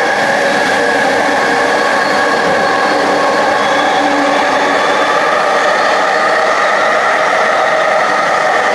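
Vancouver SkyTrain Expo Line train, driven by linear induction motors, running through a tunnel and heard from inside the front car. A steady, loud rumble of the running train has several steady high tones over it, echoing off the tunnel walls.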